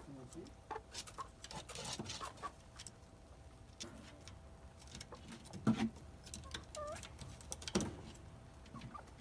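Hinai-dori chickens making small scratching and pecking noises and a brief rising chirp, with two short, sudden sharp bursts, one about five and a half seconds in and one near eight seconds.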